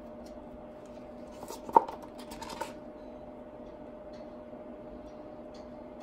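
A wooden stir stick knocks once sharply and then clicks and scrapes lightly for about a second, around two seconds in, over a steady faint hum.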